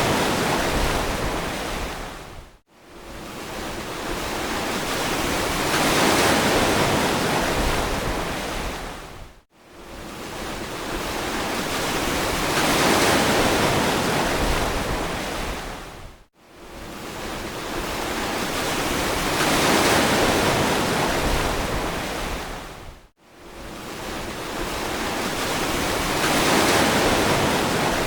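Ocean waves washing onto a beach, each swell of surf building and fading over about seven seconds. Between swells the sound drops abruptly to near silence for a moment, four times.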